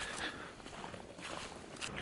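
Faint footsteps crunching over a thin layer of snow on grass.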